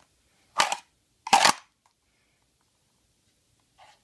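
Kydex holster rasping and clicking twice, about a second apart, as a full-size Smith & Wesson M&P pistol with a TLR-1 light is drawn from it and pushed back in.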